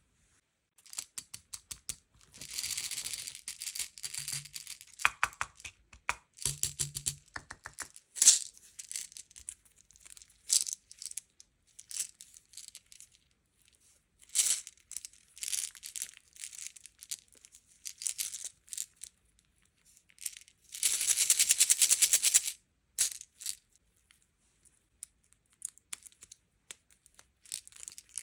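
Hands unboxing sweets and toys: plastic packaging crinkling and tearing, with many small clicks and taps, and a longer stretch of rattling, like sweets shaken or poured, about three quarters of the way through.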